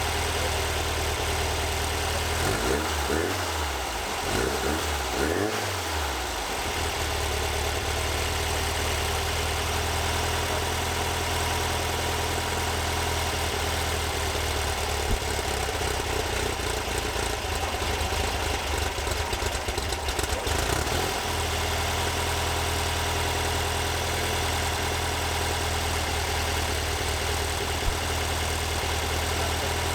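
Air-cooled flat-four engine of a 1964 VW bus running steadily. Its engine speed rises and falls a few times a few seconds in, and shifts again briefly about two-thirds of the way through.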